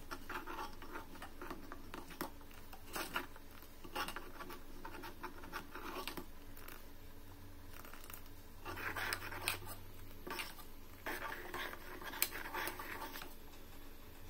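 A white ladle stirring and scraping through a thick milky dal mixture in a cooking pot, in irregular strokes with sharp clicks where it knocks against the pot.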